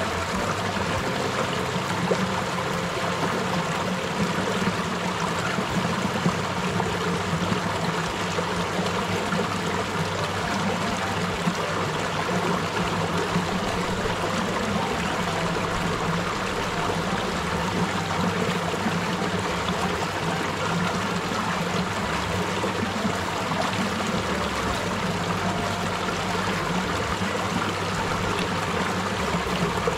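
Shallow stream running over rocks and pebbles, a steady rush of water.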